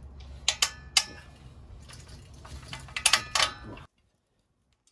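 Metal clinks and taps of steel bolts, nuts and a bracket being handled and fitted into a steel table frame: a few sharp ticks with a brief ring, then a quick cluster about three seconds in. The sound cuts off suddenly about four seconds in.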